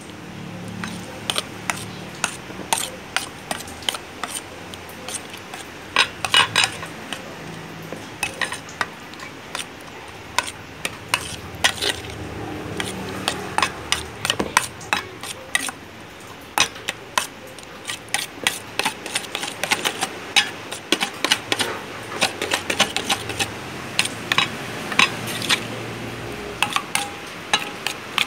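Metal spoon clinking and scraping against a stainless steel bowl while mashing pumpkin and mixing in egg, quick irregular taps several times a second.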